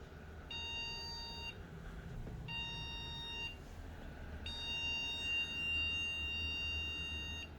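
HP HPE-580t desktop's motherboard beeping at power-on: two one-second beeps and then one long beep of about three seconds, all on one steady pitch, over a low hum. The beep pattern is a startup error code. The owner traced it to the newly fitted GTX 1660 Ti graphics card getting only 75 watts from the motherboard, not enough power to start.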